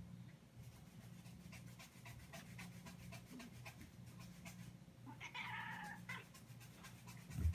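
A cat meows once, a single call of about a second a little past the middle, followed by a dull thump near the end.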